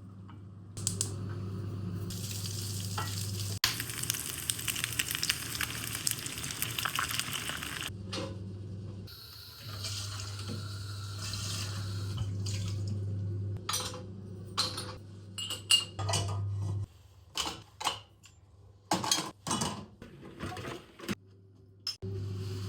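Kitchen sounds: a steady low hum under long stretches of hiss, then a run of short clinks and clatters of dishes and utensils in the second half.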